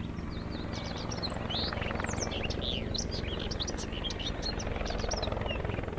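Helicopter hovering, its rotor and engine making a steady low hum, with many birds chirping quickly and continuously over it.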